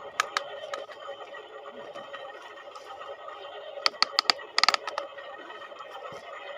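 Small electric motors of RC toy construction vehicles whining steadily, with sharp plastic clicks and clatter: two near the start and a quick run of them around the middle.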